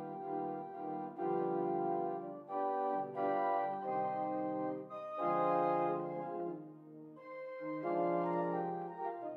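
Pipe organ playing the postlude: full, sustained chords that change about once a second, with a brief softer moment about seven seconds in.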